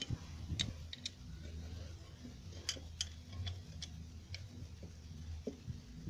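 Scattered faint, light clicks and taps as the partly reassembled blender motor and its housing are handled, over a steady low hum.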